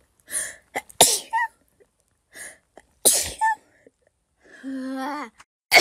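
A person sneezing: two sharp sneezes about two seconds apart. Near the end comes a held, steady 'ahh' that runs straight into another sneeze.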